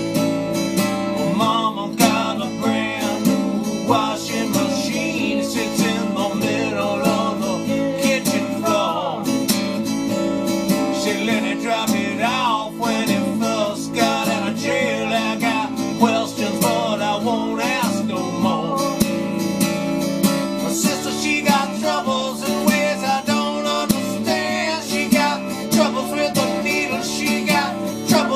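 Folk-rock song: acoustic guitar strumming steadily with a wavering melody line over it.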